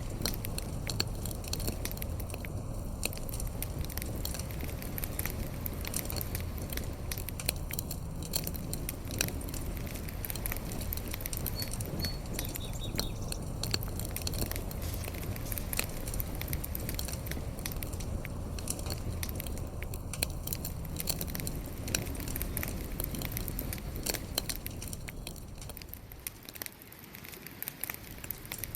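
Fire crackling: a dense, irregular run of pops and snaps over a low rumble of flames. The rumble drops away for a couple of seconds near the end while the crackling goes on.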